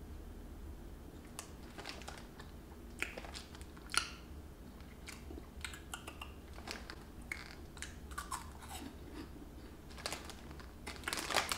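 Crunchy orange puffed snack being chewed, faint irregular crunches, with the plastic snack bag crinkling near the end as a hand goes into it.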